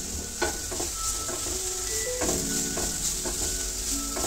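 Chopped onion, green chilli and carrot sizzling as they sauté in hot oil in a frying pan, stirred with a metal spatula that scrapes and clicks against the pan several times.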